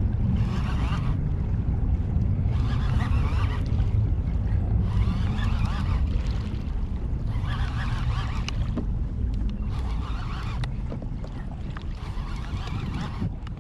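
Water splashing against a fishing kayak in a regular rhythm, about one swish every two and a half seconds, over a steady low rumble of wind on the microphone.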